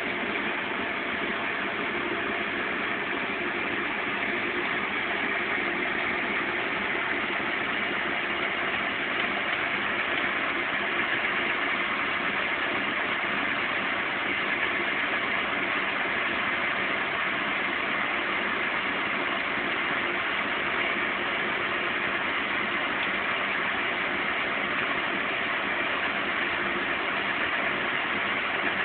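Zanussi Z 630 front-loading washing machine in its final long spin at 550 rpm, the drum turning at a constant speed with a steady, even mechanical noise and hum.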